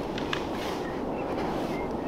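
Plastic clothes hangers clicking faintly against a metal drying-rack pole, over a steady background noise.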